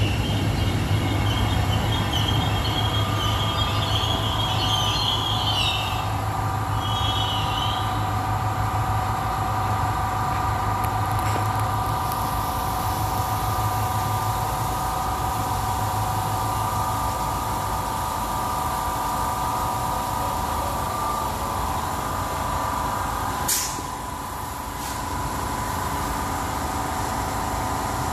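Freight wagons rumbling past and a DART electric commuter train braking into the platform, with a high brake squeal over the first several seconds. The stopped DART then gives a steady electrical hum of several tones, broken by one sharp clunk about five seconds before the end.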